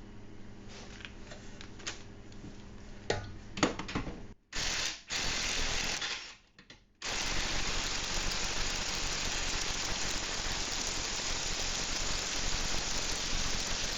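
A few clicks and knocks of tools on the suspension, then a Ryobi cordless impact wrench running in two short bursts and then steadily for about seven seconds, working a bolt on the rear suspension upper link arm.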